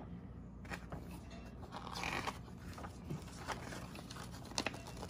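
Paper instruction leaflet rustling and crinkling as it is unfolded and handled, with scattered small clicks and scrapes and a brief louder rustle about two seconds in.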